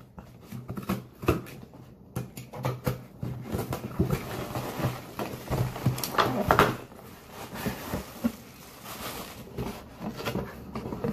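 A cardboard shipping box being opened and rummaged through by hand: flaps handled and packing inside rustling, with scattered knocks and scrapes.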